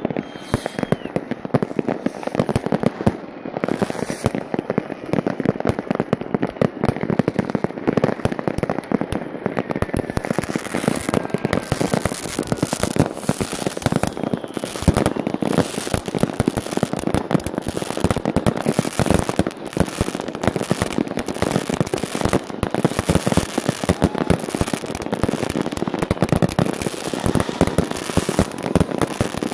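Many consumer fireworks going off at once: a continuous barrage of bangs and crackling, getting denser and more crackly from about ten seconds in, with a few faint whistling glides.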